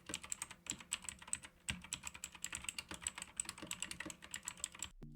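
Typing on a Leaven K620 mini mechanical keyboard with clicky blue switches: a quick, irregular run of key clicks that stops suddenly near the end.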